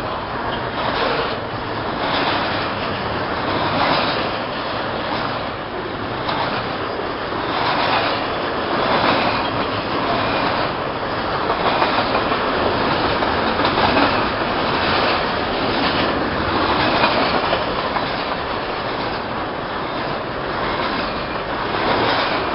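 Double-stack container freight train rolling past close by: steady noise of steel wheels on rail, with repeated clacks as the wheel sets cross rail joints.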